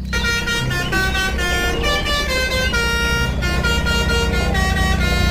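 Telolet bus horn: a multi-tone air horn playing a melody of shifting notes over a steady low hum.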